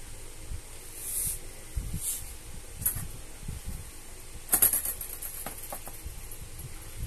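A cat's claws scratching and pawing at the nylon canopy of an open umbrella, in short scratchy rustles. The longest and loudest comes about four and a half seconds in, with a few soft knocks between them.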